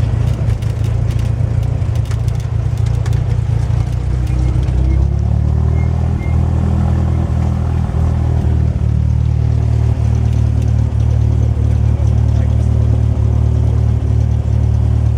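Cessna 172's piston aircraft engine running steadily with a low drone; its note shifts about five seconds in, then holds steady.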